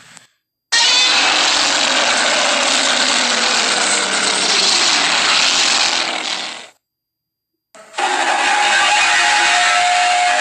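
Two long Godzilla roar sound effects from the 1954–1955 films, the studio roar made by rubbing a resin-coated leather glove along double bass strings. The first lasts about six seconds, and after a second of silence the second begins, with a steadier held pitch.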